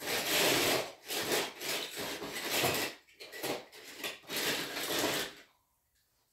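Someone rummaging through a storage bin of stored things, a run of loud scraping and rubbing strokes that stops about five and a half seconds in.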